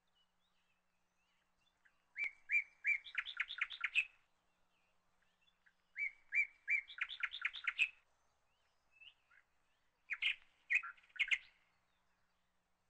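A songbird singing three short song phrases, each about two seconds long: a few evenly spaced notes that run into a quicker series climbing higher in pitch.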